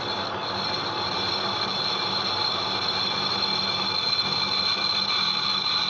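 Metal lathe running while its tool takes a light 0.2 mm facing cut across a VW Beetle flywheel's clutch face: a steady motor hum under an even cutting noise, with a steady high-pitched whine from the cut coming in just after the start.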